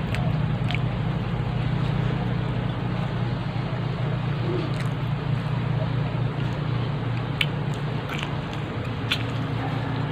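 A steady low mechanical hum, with a few short sharp clicks and faint eating sounds as a metal spoon works in a glass bowl and food is eaten by hand.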